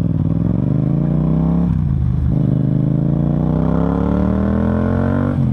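Yamaha MT-07's parallel-twin engine breathing through an Akrapovic full exhaust system, accelerating under way: the pitch climbs, dips at an upshift about two seconds in, then climbs steadily through the next gear until another shift near the end.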